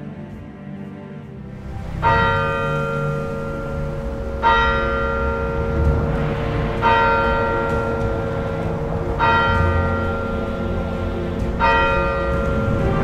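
A single church bell tolling slowly: five strokes about two and a half seconds apart, each ringing on until the next. The first stroke comes about two seconds in.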